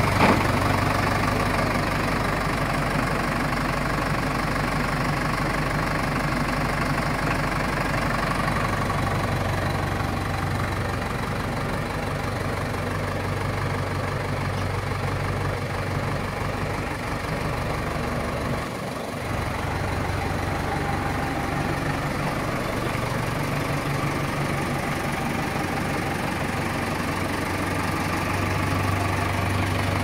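Landini Globalfarm 100 tractor's diesel engine idling steadily just after being started.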